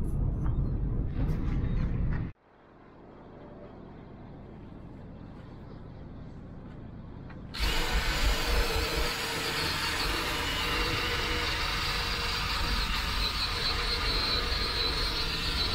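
DeWalt cordless drill spinning a stripping wheel against a Chevy van's steel door, scouring off peeling paint and rust: a loud, steady grinding that starts about halfway through. Before it there is a low rumble, then a quieter stretch after a cut.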